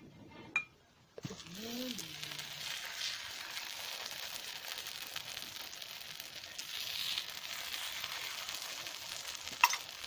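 Egg omelette frying in a flat pan over a wood fire: a steady sizzle that starts about a second in, with a spoon scraping the egg and a sharp click near the end.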